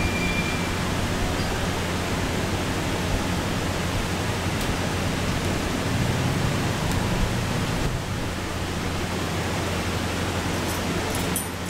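Steady hiss of background noise with a low hum underneath, and a few faint clicks near the end.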